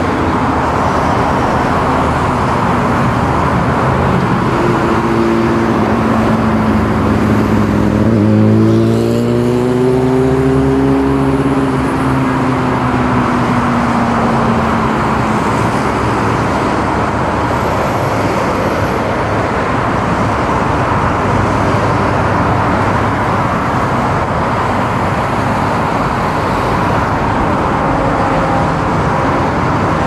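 Steady road traffic noise. About eight seconds in, one engine rises and then falls in pitch over several seconds.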